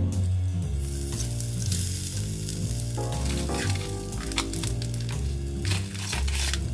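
Salted shrimp and a fish cake sizzling and crackling over charcoal on a tabletop shichirin grill, over background music with a steady low bass line.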